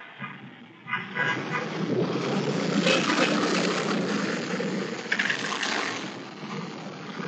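Motor scooter engines and street traffic: a low engine noise that grows suddenly louder about a second in and stays steady as a scooter pulls away and other motorcycles pass on the road.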